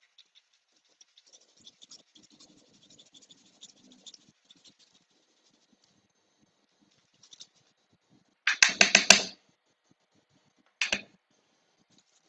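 Garlic cloves rubbed on the small grater of a nylon kitchen utensil, a faint fine rasping. Later come two short, louder bursts of rapid scraping strokes, about eight and a half seconds in and again about two seconds later, as the grated garlic is cleared off the tool into the pan.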